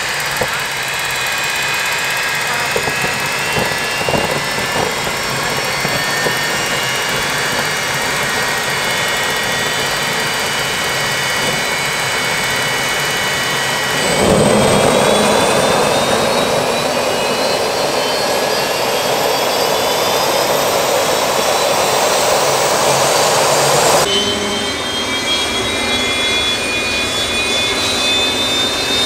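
Homemade turbojet built from a GTD-350 helicopter gas turbine, with the free turbine removed, running with a steady high whine. About halfway through it spools up: the roar grows louder and the whine climbs steadily in pitch for about ten seconds, then it drops back suddenly.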